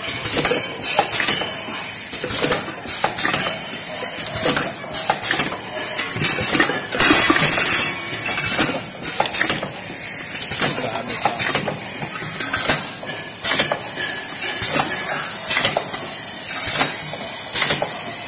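Semi-automatic tube filling and sealing machine running: repeated metallic clicks and knocks from its turntable and air-driven stations over a steady hiss, with a louder rush of hiss for about a second around seven seconds in.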